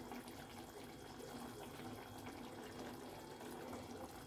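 Faint, steady bubbling of prawn curry gravy simmering in a steel pan.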